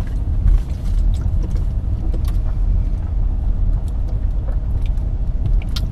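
Steady low rumble of a car's engine and tyres heard from inside the cabin while driving, with a few faint light clicks.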